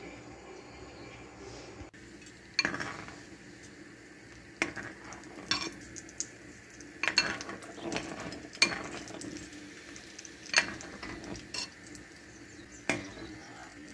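Metal spoon stirring thick pearl millet porridge in a glass bowl, clinking sharply against the glass at irregular intervals of one to two seconds. The clinks begin about two seconds in.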